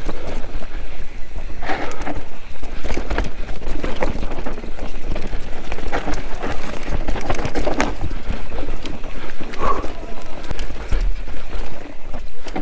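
Mountain bike descending a steep, rough trail: tyres rolling over dirt and rock, with frequent clattering knocks from the bike over bumps and wind noise on the microphone.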